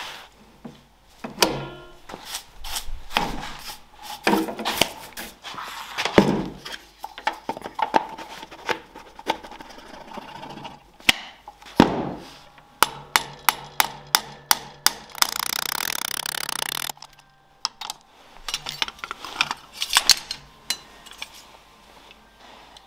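Repeated sharp knocks and taps of tool work on a green oak beam while cutting joist pockets. About two-thirds of the way through there is a short burst of rushing noise lasting a couple of seconds, which then cuts off suddenly.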